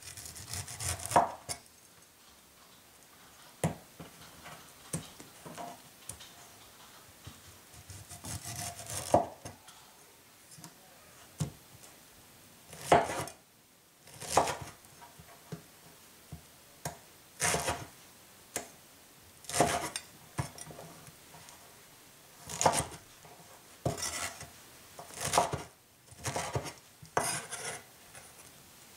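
Chinese cleaver slicing through pineapple and knocking on a wooden cutting board, in irregular strokes about one to two seconds apart, some sharp knocks and some longer slicing rasps.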